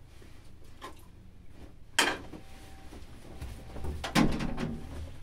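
A few sharp knocks of something being handled or set down: a faint one about a second in, then two loud ones about two seconds apart.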